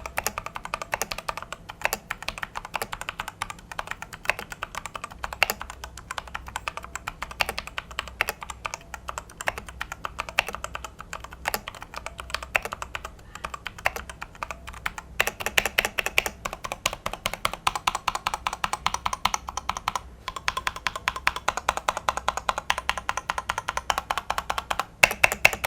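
Fast typing on a Rexus Daiva RX-D68 mechanical keyboard with Outemu switches: a dense run of key clicks, pausing briefly about twenty seconds in. Background music plays underneath.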